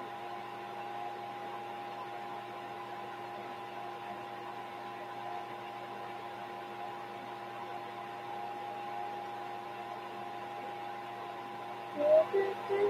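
Steady electrical hum with a couple of held tones. Near the end a voice starts.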